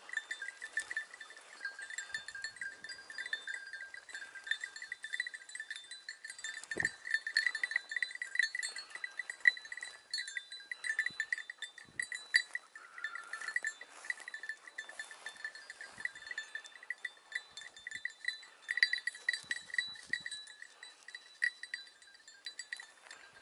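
Small metal bells jingling without a break, their ringing pulsing unevenly as the bells are shaken. A single soft thump comes about seven seconds in.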